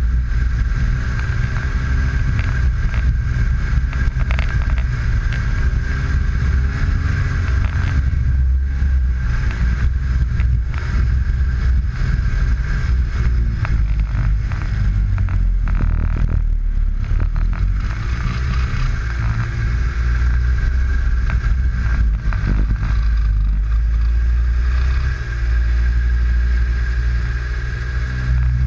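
Snowmobile running along a trail, the engine's pitch rising and falling with the throttle, over a heavy low rumble and a steady high whine.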